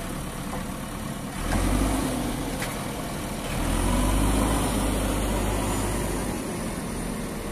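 JCB backhoe loader's diesel engine running, revving up about a second and a half in and again around four seconds in as the loader works its front bucket. A short click sounds near three seconds.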